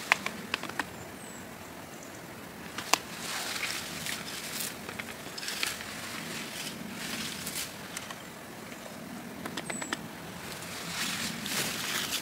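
Wild blueberry (bilberry) shrubs rustling as berries are picked from them, in uneven swells, with several sharp snaps and clicks of twigs in the first few seconds.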